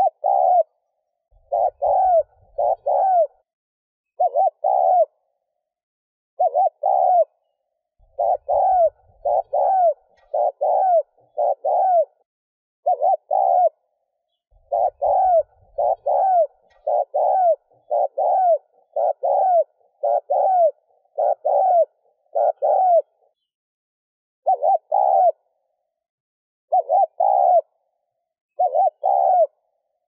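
Spotted dove giving rapid, insistent 'thúc gù' cooing: quick runs of short arched coos, two to five at a time, with pauses of a second or two between runs. This is the urgent coo used as a decoy call to draw wild doves in.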